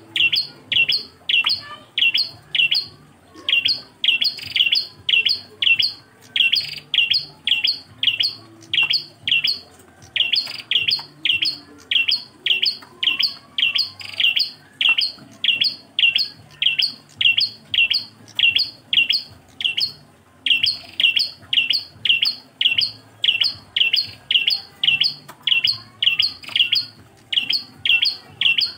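Prenjak klawu, a small Indonesian songbird, singing its single-type ('engkel') call as a tutoring recording. A sharp, high chirp that drops slightly in pitch is repeated about two to three times a second, in long runs broken by short pauses every few seconds.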